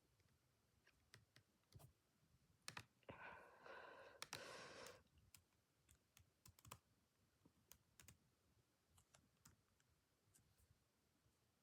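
Near silence, with faint scattered clicks and a brief breathy sound about three to five seconds in.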